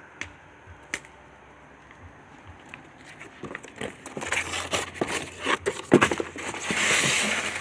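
Packaging being handled while a new chainsaw is unboxed: a few soft knocks, then crinkling and rustling that builds and is loudest near the end.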